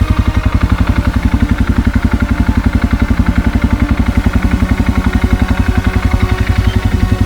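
An engine running steadily with an even, rapid pulse of about ten beats a second.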